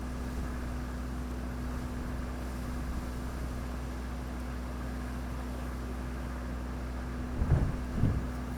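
A steady low mechanical drone with a constant hum, like a running engine, with two short low thumps near the end.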